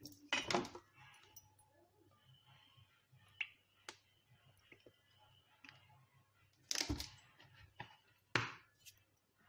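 A few short, sharp clicks and knocks, three of them louder, over a faint steady low hum in a kitchen.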